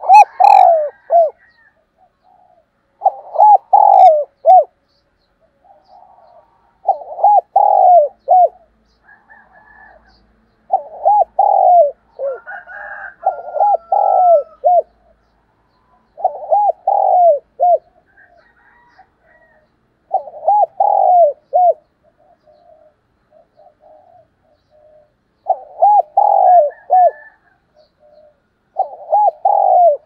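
Spotted dove cooing its song: a short phrase of several coos, repeated about every three to four seconds.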